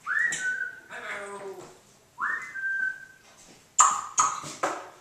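African grey parrot whistling twice, about two seconds apart: each note sweeps up and then holds a steady pitch for most of a second. Soft chatter comes between the whistles, and a few sharp clicks follow near the end.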